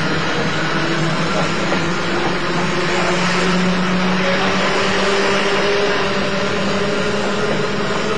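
JNR 80 series electric motor car (MoHa 80342) running along the line: a steady rumble of running noise with several humming tones from the traction motors and gears that drift slightly in pitch.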